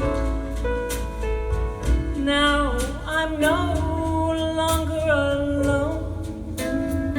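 Slow jazz ballad: a held melody line with vibrato over guitar and bass.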